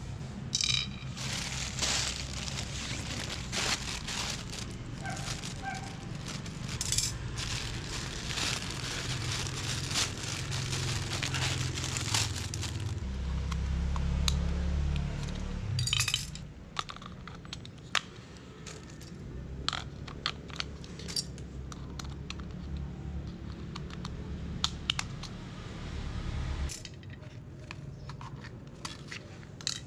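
Plastic mailer bag crinkling and tearing as it is opened by hand, with dense crackling for the first dozen seconds. A brief low rumble follows, then scattered small plastic clicks and taps as a screwdriver opens a remote-control toy mouse and batteries are fitted into its remote.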